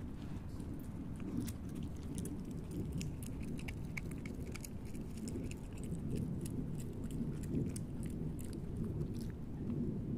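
A wild canid chewing and crunching food scraps: a scatter of small, irregular clicks and crunches over a steady low rumble.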